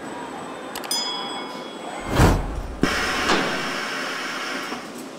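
Machine-shop noise of a machine tool cutting steel. About a second in there is a sharp metallic click with a brief ring, then a loud whoosh with a deep rumble, and just under three seconds in a sudden harsher hissing cutting noise starts and slowly fades.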